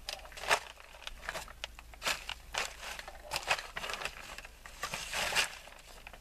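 Plastic vapor-barrier sheeting on a crawl space floor crinkling and crackling under a person crawling across it, in irregular crackles.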